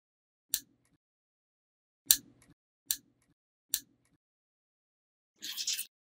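Small magnetic balls snapping together: four sharp single clicks about a second apart, then a short rattle of several balls clicking into place near the end.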